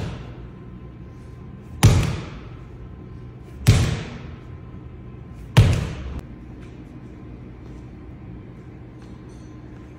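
A heavy weighted slam ball thrown down hard onto a concrete floor: three loud thuds about two seconds apart, each with a brief ringing echo, then the slams stop.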